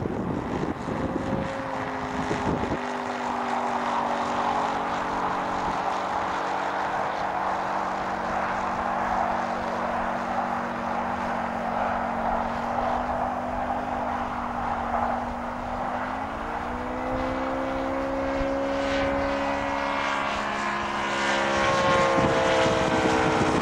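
ASP 400 radial engine of a large radio-controlled F4U Corsair model in flight, running steadily with its propeller. About two-thirds of the way through the pitch steps up, and near the end it grows louder and falls in pitch as the plane passes. Wind on the microphone in the first couple of seconds.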